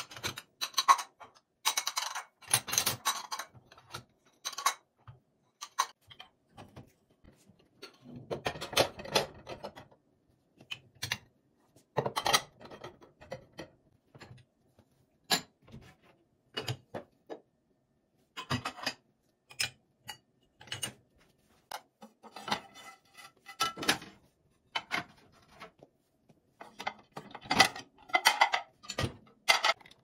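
Ceramic dishes clinking and clattering as a dishwasher is unloaded: bowls and plates lifted out of the wire racks and set down, in irregular bursts of sharp knocks and clinks.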